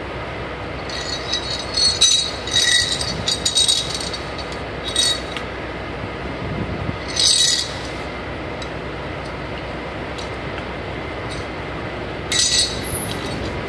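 Short metallic clinks and rattles of a diesel fuel nozzle's parts and a pipe wrench being handled on concrete, in several separate bursts, over a steady background rumble.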